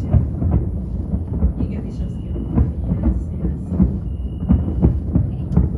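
Distant aerial fireworks display: a continuous rumble of shell bursts with many sharp bangs overlapping, echoing across the city.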